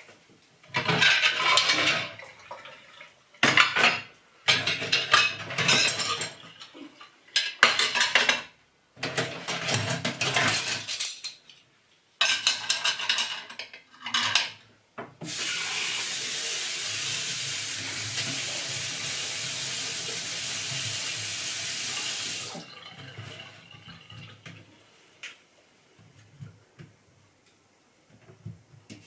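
Dishes, glasses and cutlery clattering in a kitchen sink as they are washed, then a tap running steadily for about seven seconds, followed by a few soft clinks.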